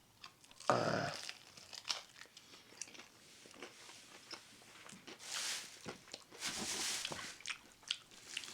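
A person biting and chewing crispy fried chicken wings close to the microphone: scattered crunches and wet mouth clicks, with two longer hissing sounds a little past the middle.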